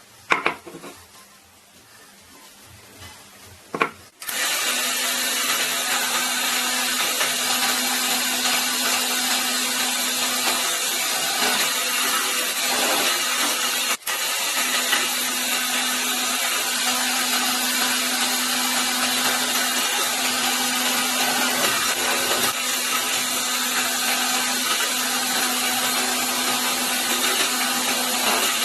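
Two sharp clicks, then a power tool starts about four seconds in and runs steadily with a loud hiss and a steady hum, cutting out for an instant about halfway through.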